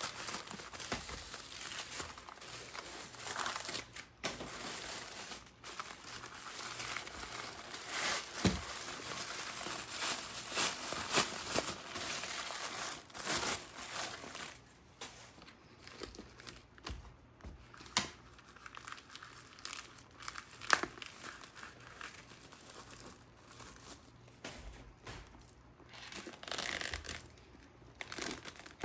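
Wrapping material crinkling and rustling as it is handled and pulled apart, in irregular crackles with sharp clicks, busiest in the first half and thinning out in the second.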